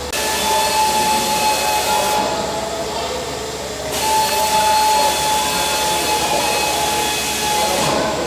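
Loud hiss with a steady whistling tone running through it. It thins out about two seconds in, comes back strongly at four seconds and eases near the end.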